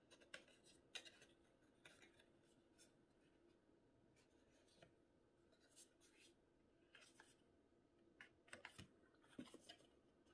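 Near silence with faint scattered rustles and light taps of cardstock being folded and pressed together, the glued corner flaps of a paper box being closed; a small cluster of them comes near the end.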